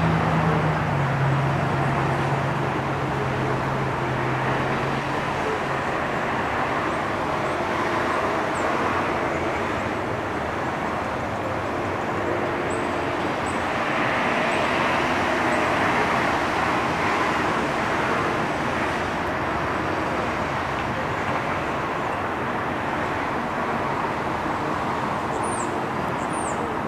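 Steady background traffic noise, with the low hum of a passing vehicle fading out over the first few seconds. A few faint high chirps come near the end.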